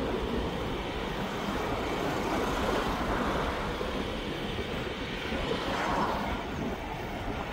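Steady road noise while riding an e-bike: wind rushing over the microphone and tyres running on tarmac, with a slight swell near the end.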